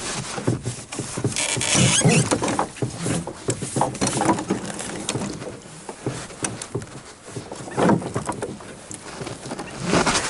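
Irregular rustling with many small clicks and knocks, like gear or materials being handled and moved about, with a louder burst of rustling about two seconds in and again near the end.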